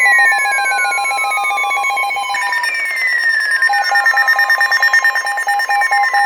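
Emergency alert tones from weather radios, several sounding at once: a steady alarm tone that cuts off about two and a half seconds in, a fast-pulsing beep that later returns as slower beeps, and repeated falling sweeps. The steady tone is the attention signal that comes before a flash flood warning is read.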